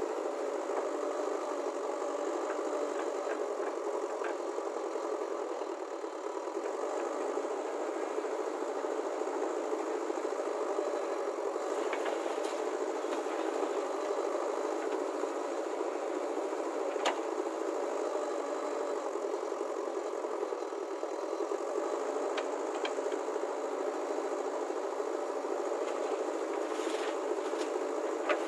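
Diesel engine of a JCB backhoe loader running steadily while it digs and swings soil, with a few sharp knocks now and then.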